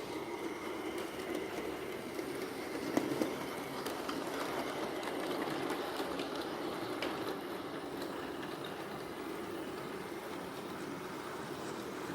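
Small electric model train running along the track with a steady motor and wheel rumble, and a few light clicks from the wheels on the rails.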